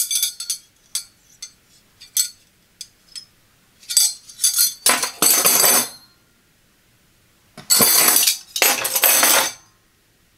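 Stainless steel dinner knives clinking together in the hands: a run of light, bright metal clinks, then three longer strokes of metal scraping along metal as the knives are slid against one another.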